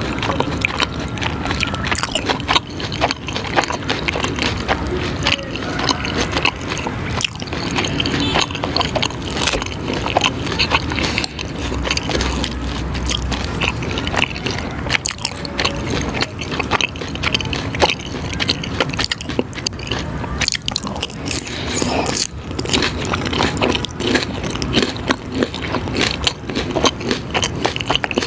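Close-miked eating: food being bitten and chewed, a dense, continuous run of crackles and clicks.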